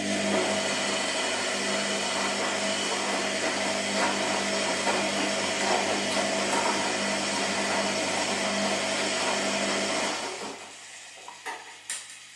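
Washing machine motor running hard for about ten seconds, a steady hum with churning noise over it, then winding down and stopping. Two sharp clicks follow near the end.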